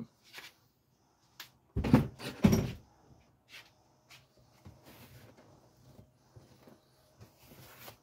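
Hands and tools working at a car door panel: two heavy, dull knocks about two seconds in, then scattered light clicks and rattles.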